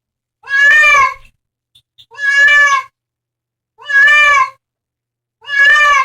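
A cat meowing four times in a row, evenly spaced, each meow a clear, fairly high call of under a second and all alike.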